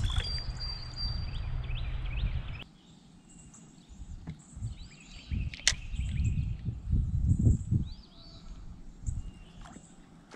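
Outdoor river ambience. A low rumbling noise stops abruptly under three seconds in, then birds chirp faintly, with low rumbles and one sharp click about halfway through.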